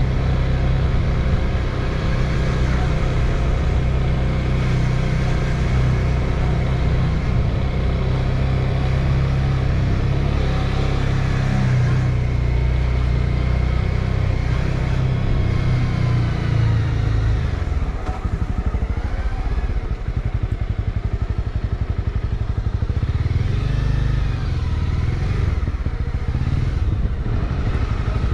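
Motorcycle engine running as the bike is ridden along a road. About two-thirds of the way through the engine note drops away as the throttle eases, then builds again near the end.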